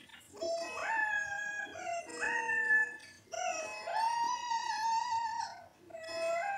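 A high female singing voice holding long wordless notes in several phrases, stepping and sliding between pitches, with short breaks between phrases.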